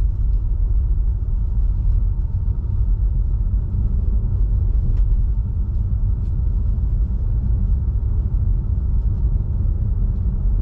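Steady low rumble of tyre and road noise from a Tesla Model 3, an electric car with no engine note, driving on a snow-covered road at about 50 km/h on all-season tyres, with a few faint ticks.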